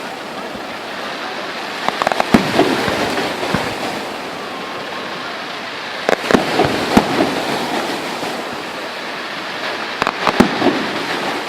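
Fireworks going off: three clusters of sharp bangs and crackles, about four seconds apart, over a steady rushing noise.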